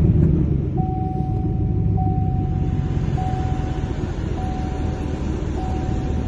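2020 Chevy Silverado's engine just started and idling steadily, a little louder at first and then settling. Over it a single-pitch beep sounds about once every 1.2 seconds, each beep lasting about a second.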